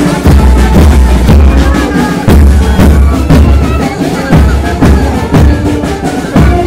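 Marching band of brass and drums playing a march: bass drums beat a steady beat under the brass melody.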